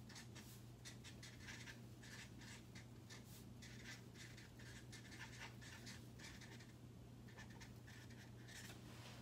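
Faint squeak and scratch of a felt-tip marker writing on a large paper pad, in many short irregular strokes, over a steady low hum.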